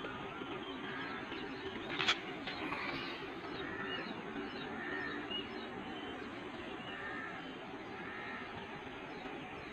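Birds chirping against a steady outdoor hiss, with one sharp click about two seconds in.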